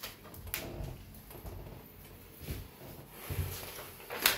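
Handling noises in a small room: scattered faint knocks and rustles, with one sharp click near the end.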